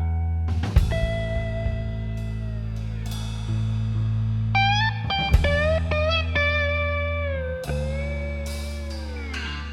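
Background music: a guitar instrumental with long, bending lead notes over a steady bass.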